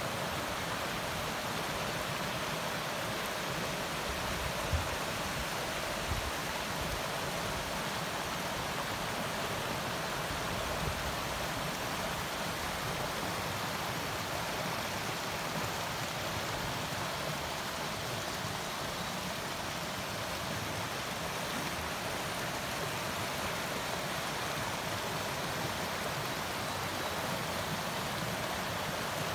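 Shallow rocky stream flowing over limestone stones and a small riffle, a steady rush of water with no change. Two brief low thumps about five and six seconds in.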